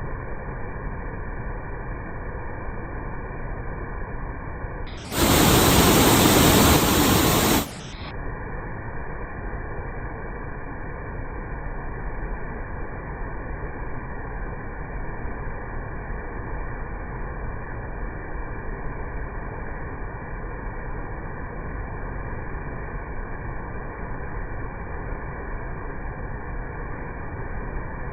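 Steady, muffled rush of a waterfall running high with typhoon runoff. About five seconds in, a much louder and brighter rushing noise breaks in for about two and a half seconds, then cuts off suddenly.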